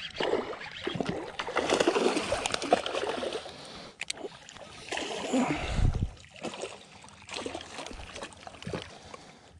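A baitcasting reel cranked in against a hooked fish, with irregular clicks and rustling handling noise and water splashing as the fish is drawn to the surface. A low thump comes a little before the six-second mark, and the sound dies down near the end.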